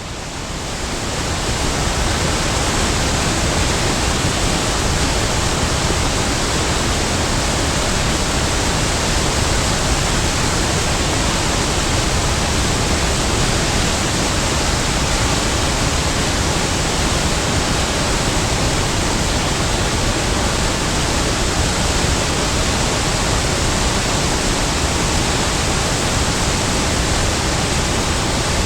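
Big waterfall: a steady, heavy rush of falling water that swells up over the first couple of seconds and then holds even.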